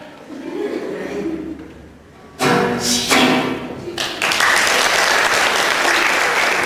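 A loud closing burst of voices and music about two and a half seconds in, then audience applause from about four seconds in, steady and dense.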